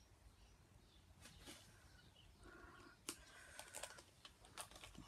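Near silence, with faint scattered clicks and light taps of a plastic piping bag and gloved hand being handled on a work table.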